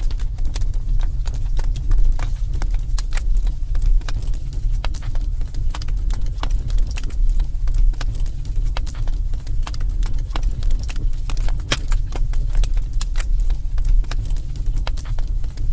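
Wood fire crackling in a fireplace: irregular sharp pops and snaps scattered through, over a steady low rumble.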